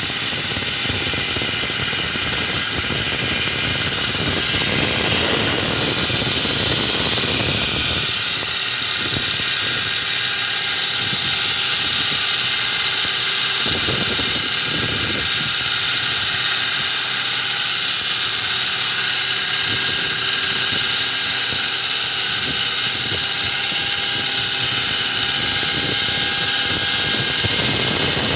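Concrete cutting machine running steadily with a high, even whine. A lower rumble under it is strong at first, drops away about eight seconds in, and returns briefly around the middle and again near the end.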